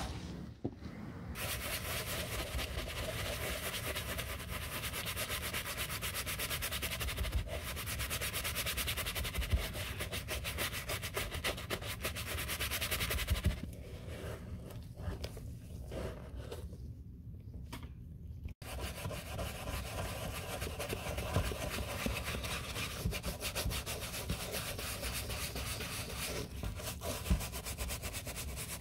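Rubbing and brushing on a white leather sneaker: a terry towel wiped over the upper and a bristle brush scrubbed inside the shoe. The scratching runs steadily, and turns quieter and patchier for a few seconds past the middle.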